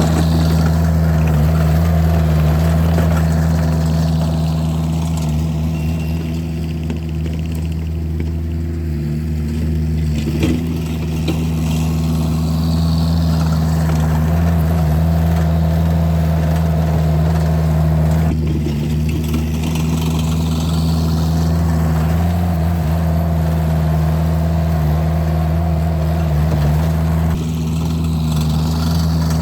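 Engine of a Vermeer compact loader running steadily as it pushes snow with a snow box, with a few small shifts in its tone.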